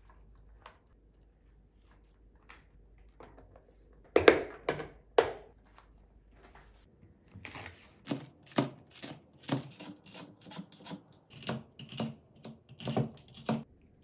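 Chef's knife chopping on a cutting board: three sharp knocks close together about four seconds in, then a steady run of chops at about two a second.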